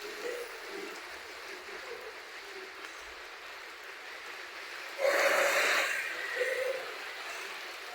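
Heavy rain falling and water running steadily, with a sudden louder rush of noise about five seconds in that fades away over a couple of seconds.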